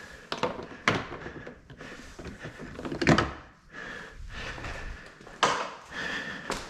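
A few knocks and thuds with clatter between them as loose car body parts are handled and fitted. The loudest knock comes about three seconds in.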